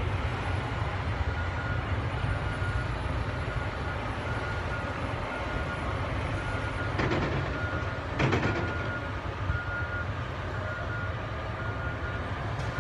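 Crawler bulldozers' diesel engines running with a low, steady rumble while a backup alarm beeps at an even pace. Two short metallic clanks come about seven and eight seconds in, the second the loudest.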